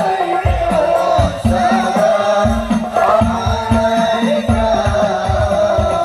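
Islamic sholawat devotional singing over a loudspeaker system, long held sung notes with sliding melismas over a steady drum beat of about two strokes a second.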